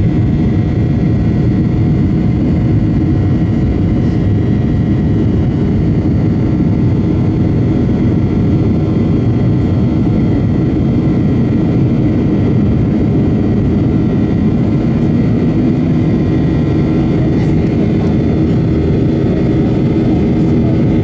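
Cabin noise inside a Boeing 737-800 in flight: its CFM56-7B turbofan engines running steadily, heard through the cabin wall as a loud, even drone with a few steady tones over it.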